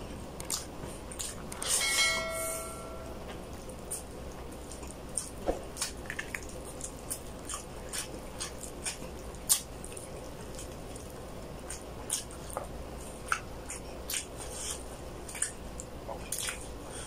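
Scattered soft, wet clicks and smacks of hands pulling apart a whole braised chicken (chicken hamonado) and of mouth chewing. A short ringing chime sounds about two seconds in.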